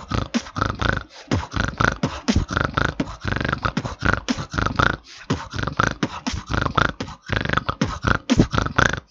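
Beatboxed practice beat built on snort bass, the snore-like inward bass pulled in through the nose, set among quick kick and snare sounds in a fast, steady rhythm.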